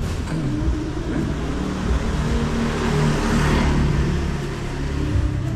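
A motor vehicle passing along the street, its engine and tyre noise rising to a peak about three seconds in and then fading.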